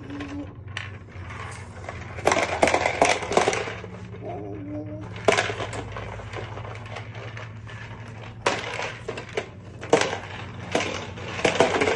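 Toy vacuum cleaner running: a steady low motor hum under irregular clattering and rattling knocks.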